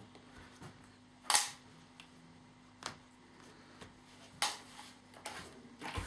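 A few sharp clicks and taps, the loudest about a second in and two more spread through, as dressmaking pins are pulled out of the fabric and buckram and put down on the table. A faint steady hum underneath stops a little past four seconds in.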